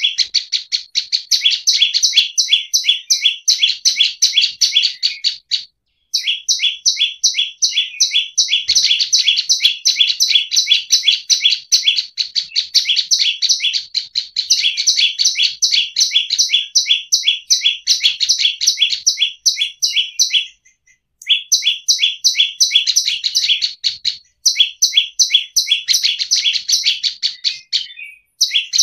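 Prenjak lumut singing gacor: a loud, rapid, unbroken-sounding string of sharp high chirps, several a second, in long runs with a few short breaks.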